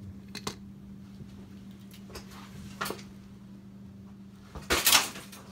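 Handling noises at a workbench: a few light clicks, then a louder brief rustling scrape near the end, over a steady low hum.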